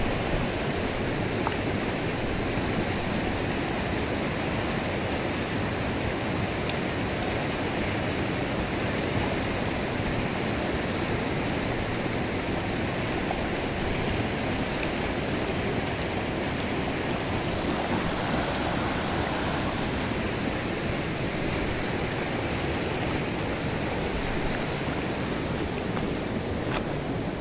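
Fast, shallow mountain river rushing over boulders and through white-water rapids: a steady, unbroken rush of water.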